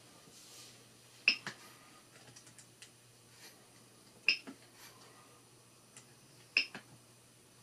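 Three pairs of sharp clicks about three seconds apart, each pair quick like a button pressed and released.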